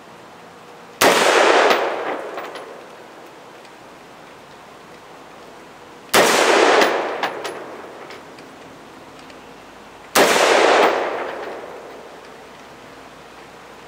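Colt AR-15 A2 rifle firing 5.56 NATO rounds semi-automatically: three single shots about four to five seconds apart, each a sharp crack that trails off in a long echo.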